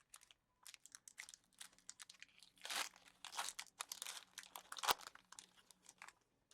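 Foil booster pack wrapper crinkling and tearing as it is opened by hand: an irregular run of crackles, loudest about three and five seconds in.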